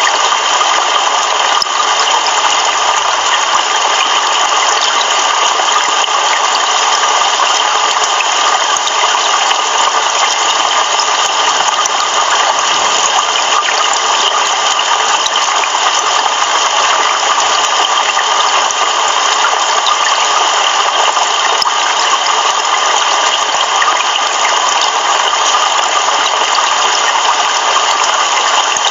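Heavy rain falling steadily: an even, unbroken hiss with no thunder heard.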